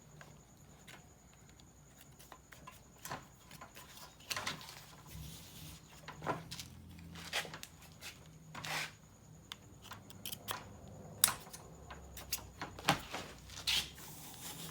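Scattered light clicks and scrapes of screen-door handle tabs being slid into the channels on the sides of a retractable screen's pull bar, the sharpest click about eleven seconds in.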